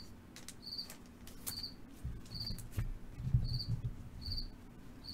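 A cricket chirping steadily in the background, short high chirps about one and a half times a second. Low rustling and a few soft clicks come from handling the cards, loudest in the middle.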